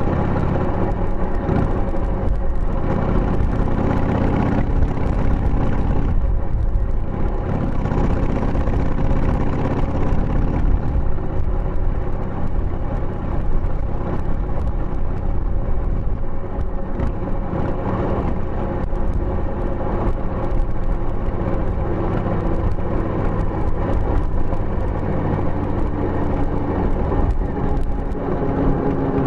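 Harley-Davidson Sportster 883's air-cooled Evolution V-twin running under way, heard through a tapered muffler with its baffle fitted. The engine note climbs over the first few seconds and drops sharply about six seconds in, then holds fairly steady.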